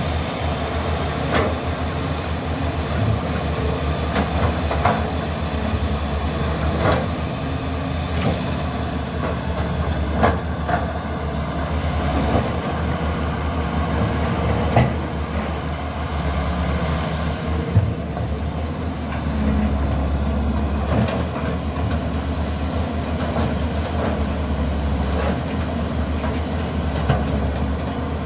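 Diesel engine of a Caterpillar E200B hydraulic excavator running steadily under digging load, with a sharp knock every few seconds.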